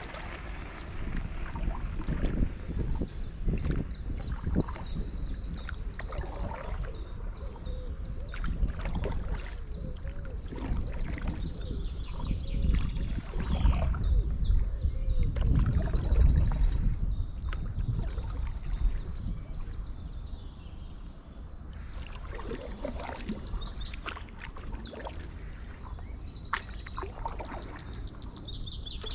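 Stand-up paddleboard paddle dipping and pulling through canal water in repeated strokes, with small birds singing trilled phrases again and again. A low rumble swells in the middle.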